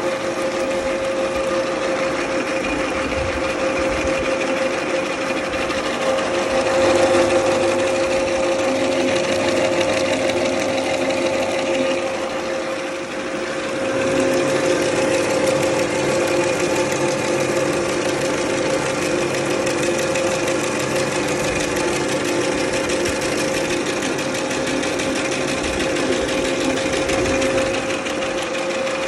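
Small two-cylinder soybean dehulling mill running on test, a steady mechanical hum with a constant whine. It swells for a few seconds about a quarter of the way in and dips briefly near the middle.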